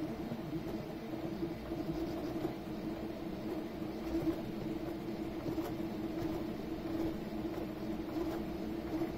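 Custom cross-XY 3D printer printing at speed: its motors hum in a steady, wavering tone as the print head moves back and forth over the bed, with a few faint ticks.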